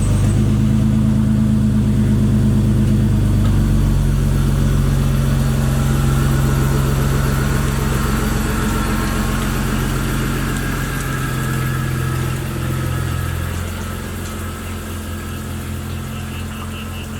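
BMW E46's engine running at a steady idle just after starting, growing somewhat quieter over the last few seconds.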